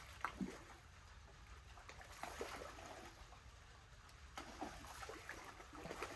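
Faint water trickling and lapping, with a few small scattered clicks and knocks.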